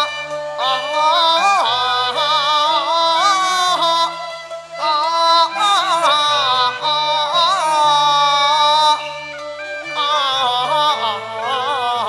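Cantonese opera song: a male voice sings a slow, wavering, ornamented melodic line over instrumental accompaniment.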